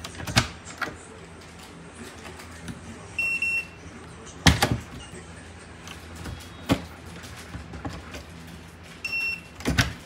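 Secustone fingerprint door lever lock beeping a high tone as a fingertip is read, about three seconds in and again near the end. Between the beeps come sharp clicks and clacks of the lever and latch being worked, the loudest about four and a half seconds in.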